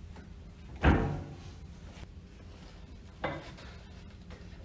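A heavy metallic thunk about a second in that rings on briefly, then a lighter knock near three seconds, from metal pump parts and tools being handled while the pump is dismantled, over a low workshop hum.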